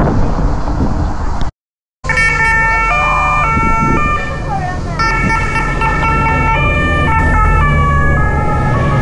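Road noise cut off by a brief dropout about a second and a half in. Then several two-tone sirens sound together, each stepping between its two pitches about every half second, over a steady low rumble of engines.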